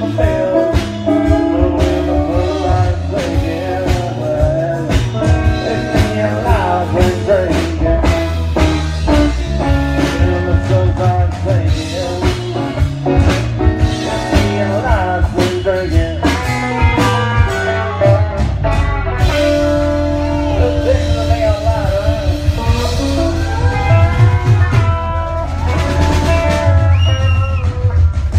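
Live country band playing loudly: electric guitars over a steady bass and drum-kit beat.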